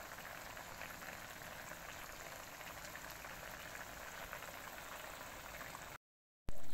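Broth with canned sardines boiling in a metal wok: a steady bubbling hiss. It cuts out briefly near the end, then comes back louder.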